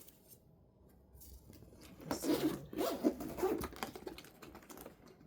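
Zipper on a fabric pet backpack carrier being pulled open or shut: a quiet start, then a run of quick rasping zip strokes from about two seconds in.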